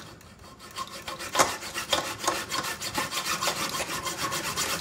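Rapid, rhythmic scraping strokes, about six a second, beginning about a second in.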